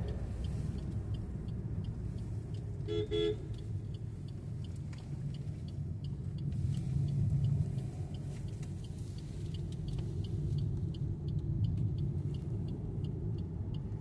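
Car driving on a winding road, heard from inside the cabin: steady low engine and road rumble, with two quick horn toots about three seconds in and a faint, regular high ticking.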